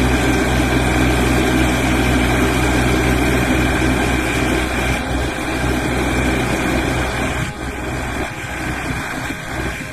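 Tracked rotary snowblower's engine running steadily under load as it cuts through deep snow and throws it out of the chute, cutting off suddenly just after.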